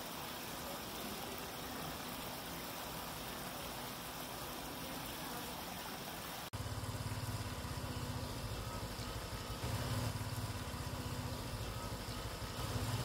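Steady trickle of a small rock-lined stream. About halfway through the sound cuts abruptly and a louder low rumble takes over, swelling and fading.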